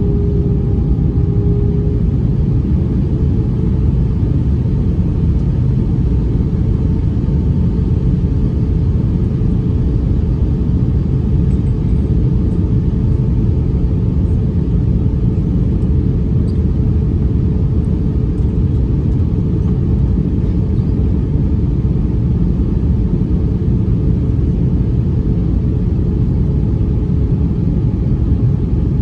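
Airbus A321 airliner cabin noise in flight: a steady low rumble of engines and airflow with a constant engine hum, its pitch stepping up slightly about two seconds in.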